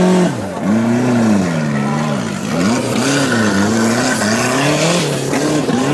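Off-road 4x4 competition vehicle's engine revving up and down repeatedly, pitch rising and falling about once a second, as it pulls out of a muddy water crossing and climbs a dirt slope under load.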